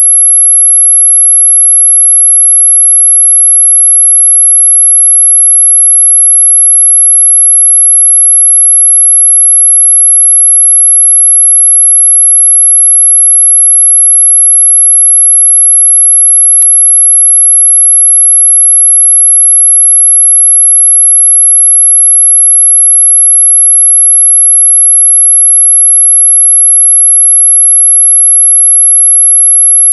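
Steady, very high-pitched pure electronic tone, played as a supposed mosquito-repelling 'ultrasonic' sound. The pitch stays high but audible, not truly ultrasonic. A single faint click comes about halfway through.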